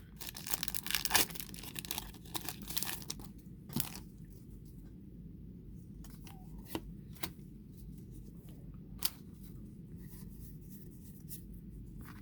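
Foil wrapper of a Pokémon booster pack being torn open and crinkling for about three and a half seconds, then a few isolated light clicks.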